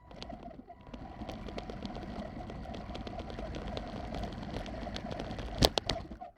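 Small radio-controlled truck's electric motor and gearing running steadily, with many small crackling clicks and a sharp knock about five and a half seconds in.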